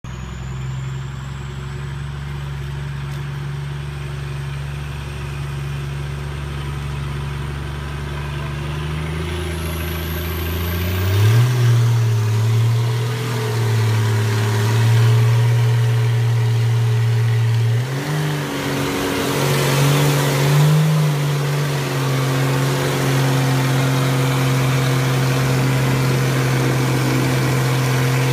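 Nissan Patrol Y60 4x4's engine pulling under load up a muddy slope. It holds steady revs, then picks up and wavers as the throttle changes about a third of the way in and again past the middle. It grows louder as the truck comes closer.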